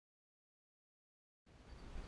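Dead silence for about a second and a half, then outdoor ambience cuts in abruptly: wind rumbling on the action-camera microphone over a steady hiss.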